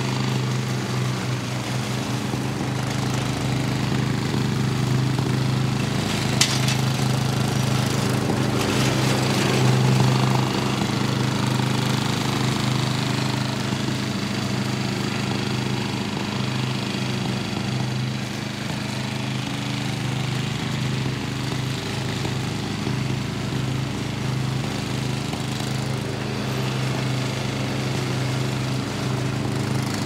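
Riding tractor lawn mower's engine running steadily as it cuts grass, with a sharp click about six seconds in and a brief swell in loudness around ten seconds.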